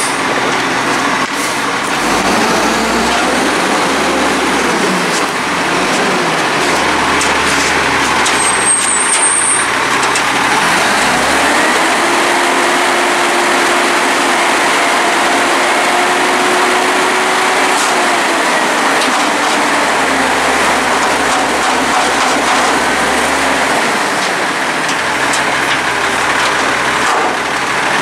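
Volvo WX64 front-loader garbage truck running as it carries a dumpster on its forks and then lifts it over the cab. About halfway through, the engine rises and a steady whine holds for several seconds while the hydraulic arms raise the dumpster.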